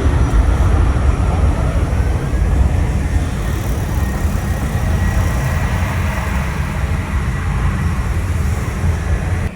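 Jet airliner's engines rumbling, a deep steady roar that slowly eases off, with a faint higher whine in the middle.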